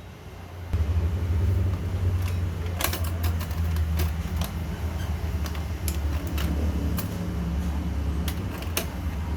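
A low steady drone starts about a second in, with scattered light clicks and taps of hands handling computer parts while a CPU and heatsink are fitted.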